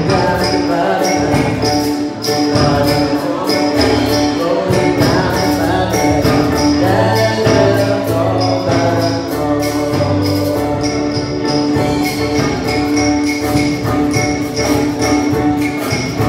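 Live praise band music with a drum kit and keyboard playing held chords over a steady beat.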